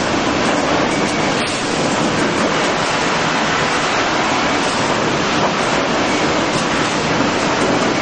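Sawmill machinery running: a loud, steady industrial din from the chain transfer deck and mill equipment moving boards, with no distinct strokes or cuts standing out.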